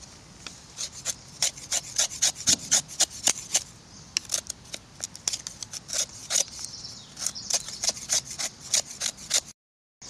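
Knife blade shaving thin curls off a damp wooden branch for tinder: a run of quick scraping strokes, about two to three a second. The sound cuts out for a moment near the end.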